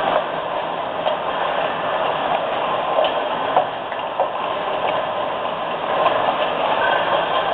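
Can washing, filling and sealing line machinery running: a steady mechanical clatter with sharp clicks and ticks scattered through it.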